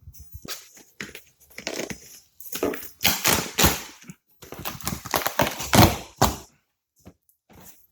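A cardboard shipping box being opened and its packing rustled and crinkled by hand, in a string of irregular scraping and crumpling bursts.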